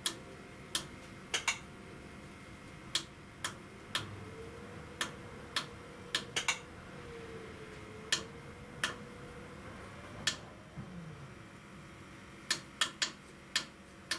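Irregular sharp ticks of rainwater dripping from the gutter downpipes into a plastic IBC tote tank. They come at uneven gaps, sometimes two or three close together, each with a slight ring.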